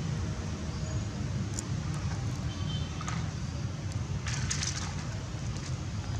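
Steady low outdoor rumble with a few light crackles and clicks, the loudest cluster about four and a half seconds in.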